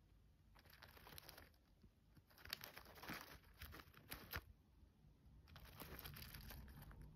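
Faint crackling and crinkling in three short spells as a hamster works at an unshelled peanut in shredded-paper bedding.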